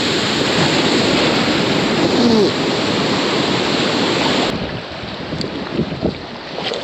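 Ocean surf surging against the rocky shore, a loud rush of water with wind on the microphone, that falls away sharply about four and a half seconds in to a quieter wash with a few small knocks.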